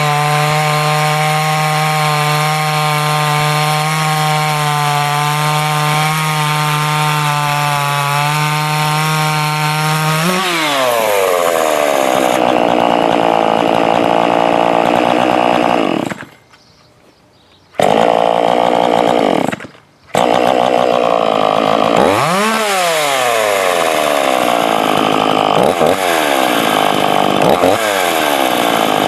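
Ported Dolmar 421 two-stroke chainsaw held at steady high revs for about ten seconds, then dropping off. After two brief gaps it is blipped repeatedly, the revs rising sharply and falling back each time.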